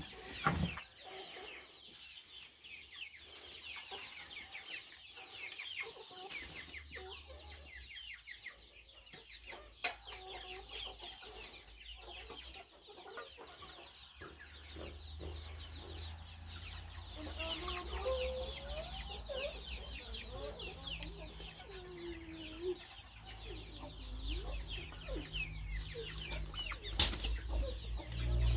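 A flock of chicks peeping in quick high chirps, with a broody hen clucking lower through the middle. A sharp click near the end.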